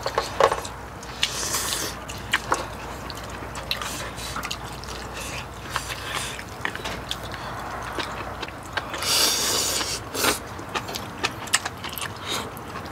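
Close-miked eating sounds: wet chewing and slurping of noodles and spicy soup, with many short clicks of chopsticks against bowls and the pot, and a longer slurp about nine seconds in.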